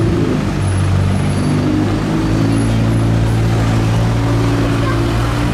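KTM X-Bow's turbocharged 2.0-litre four-cylinder engine idling steadily, a low even hum.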